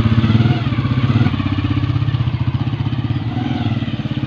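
Honda CG125 single-cylinder four-stroke motorcycle engine running with an even, rapid beat as the bike pulls away and rides off, loudest in the first second or so. Freshly tuned and fitted with a new sprocket and chain set, it runs without any abnormal noise; it had been making noises when shifting gears.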